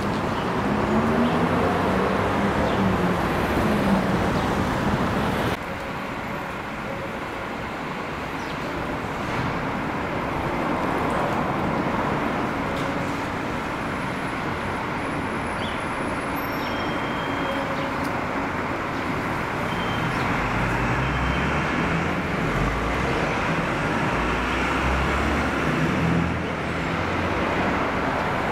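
Street traffic noise: cars driving past in a steady wash of road noise, with a heavier vehicle's low engine rumble in the second half.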